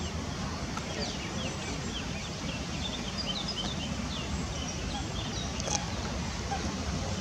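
Birds chirping in many short, high calls over a steady low background rumble, with one brief sharp sound about two thirds of the way through.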